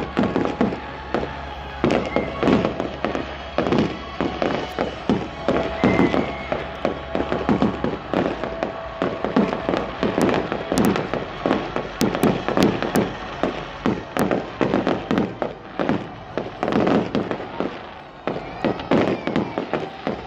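Fireworks display: aerial shells bursting overhead in a rapid, continuous string of bangs and crackles, several a second.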